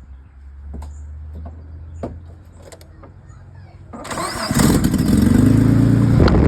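Nissan GQ Patrol engine started: a few light clicks, then about four seconds in it cranks, catches and runs loud and rough, the revs rising before dropping back near the end. The harsh running comes with a blown exhaust gasket.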